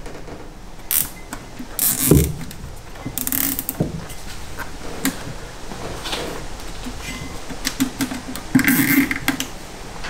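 Nylon cable tie ratcheting as it is pulled tight to hang a brake caliper, in several short bursts, with clicks and knocks from the caliper being handled.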